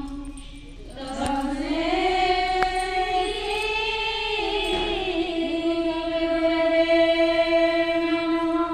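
A group of women singing a devotional chant together, holding long notes that slide up to a higher pitch about a second in after a brief pause for breath.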